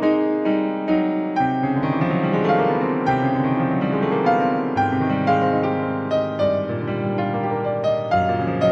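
Piano music: slow struck notes, with a flurry of quick running notes about two seconds in.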